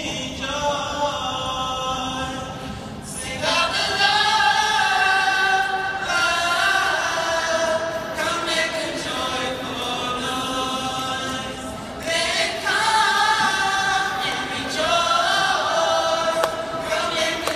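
Choir singing held, full chords that swell louder about three seconds in and again about twelve seconds in.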